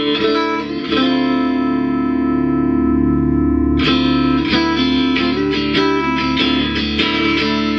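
Electric guitar played through a Peavey Envoy 110 solid-state amplifier. A chord is struck about a second in and left ringing for nearly three seconds, then a string of shorter strummed chords and notes follows.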